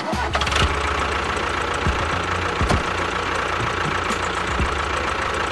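A small engine or motor running steadily, with a constant whine and a low hum, starting suddenly; a few brief knocks come through it.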